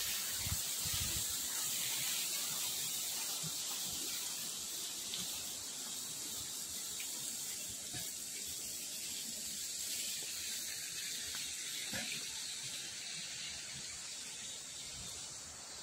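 Steady high-pitched outdoor hiss with no clear pitch, with a few faint low thuds in the first second or so and again later.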